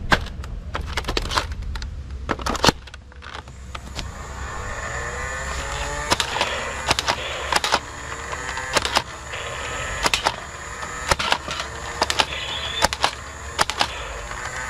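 Irregular series of sharp clicks or snaps, several a second, over a steady low hum.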